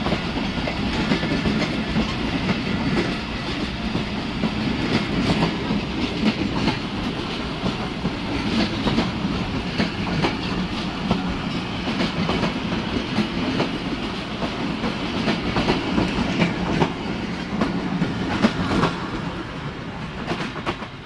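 Pakistan Railways passenger coaches passing close by on the adjacent track: a steady rumble with rapid clicking of wheels over rail joints, dropping off near the end as the last coach goes by.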